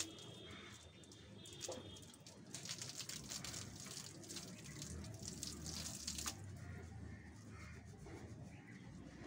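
Water splashing and dripping from long, wet, soapy hair as it is wrung out by hand, a dense patter of small splashes from about two and a half to six seconds in.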